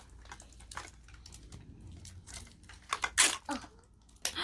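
Plastic packaging crinkling and tearing as a small wrapped item is pulled open by hand: a run of short, sharp rustles, loudest in a cluster about three seconds in.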